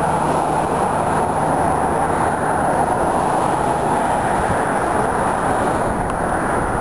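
Passenger train rolling past, a steady rumble of wheels on rail.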